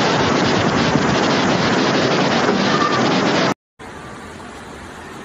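Floodwater rushing down a street, a loud steady rush of water noise. About three and a half seconds in it cuts off abruptly and, after a moment's gap, a quieter steady rush goes on.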